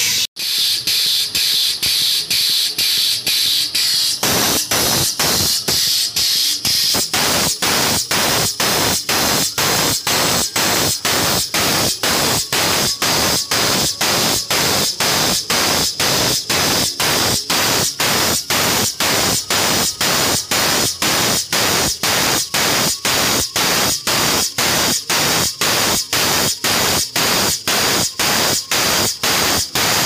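Air-driven hydraulic bottle jack lifting a truck axle: the pump runs with a loud hiss that pulses about two and a half times a second.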